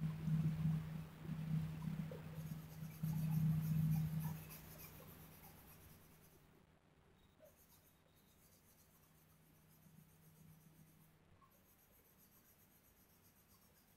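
2B graphite pencil shading on drawing paper: repeated scratchy hatching strokes, loudest in the first four seconds and much fainter after that.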